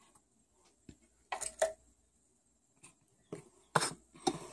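A few short scuffs and taps as a small plastic toy figure is handled and set down on a wooden tabletop: one pair about a second and a half in, then several more near the end.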